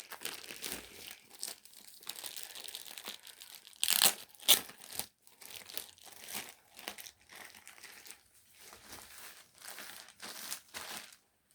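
Packaging being handled and moved: irregular crinkling and rustling, with two louder crackles about four seconds in.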